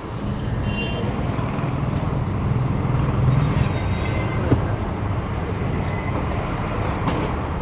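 Steady road traffic noise, vehicle engines running, with a low rumble that swells around the middle and a single sharp tick about four and a half seconds in.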